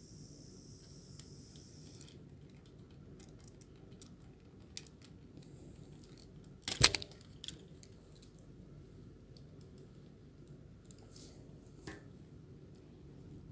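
Plastic clicks and snaps from a Transformers Masterpiece MP-39 Sunstreaker figure's hinged panels and joints being moved by hand. There is a loud burst of snaps about seven seconds in and another click near the end.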